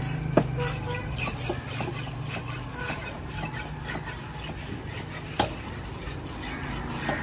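Fish-cutting knife scraping and tapping on fish at a wooden cutting table, an irregular run of small scrapes and clicks. Two sharper knocks come, one just after the start and one about five seconds in.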